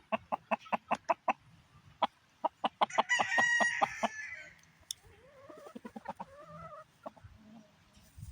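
Chickens clucking in quick runs of sharp notes, with a rooster crowing about three seconds in for roughly a second; softer clucks and calls follow.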